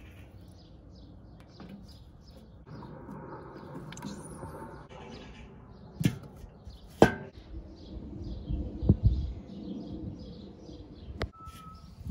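Small birds chirping over and over in the background, with two sharp metallic knocks about six and seven seconds in from the kettle grill's metal lid being handled, and a low rumble and a click later on.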